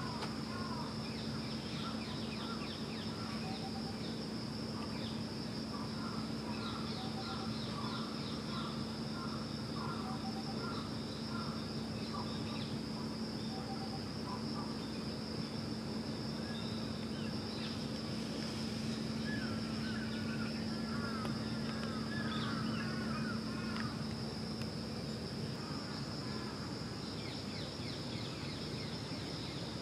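Steady high-pitched drone of insects, with small birds chirping in short runs of quick notes, over a low steady hum.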